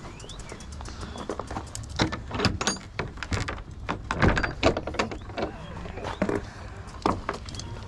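Irregular clattering knocks and rattles from an electric bike rolling slowly over bumpy grass and gravel, over a low rumble; the knocks come thickest a couple of seconds in.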